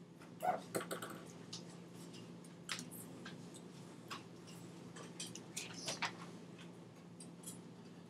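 Faint, scattered clicks and taps, a few of them a little louder about half a second in, near three seconds and near six seconds, over a steady low electrical hum.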